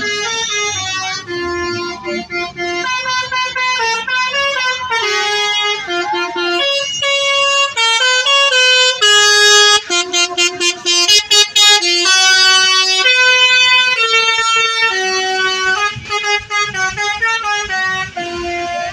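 Bus telolet horn, a set of multi-tone air horns, playing a loud tune in stepped notes, with a run of rapid short toots about halfway through.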